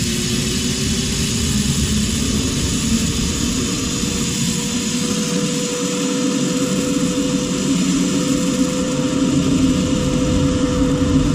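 Steel zip-line cable and trolley running, a steady whirring hum with a tone that slowly rises in pitch over a low rumble.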